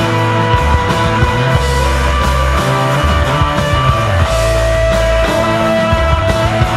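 Live instrumental desert rock from a trio of electric guitar, bass guitar and drums, with a moving bass line under sustained guitar; a long held guitar note rings out about two-thirds of the way through.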